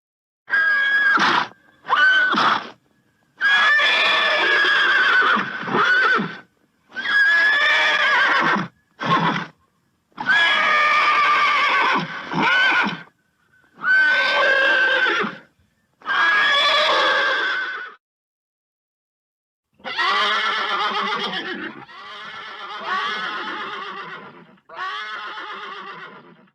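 A horse neighing over and over: about ten whinnies, each a pitched, wavering call, cut apart by short dead silences. About two-thirds of the way through there is a gap of about two seconds, and the last few neighs are lower and rougher.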